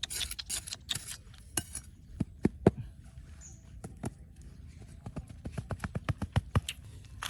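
Rhythmic scraping or rasping strokes, about three a second, for the first couple of seconds, then a run of sharp, irregular knocks and taps, coming faster near the end.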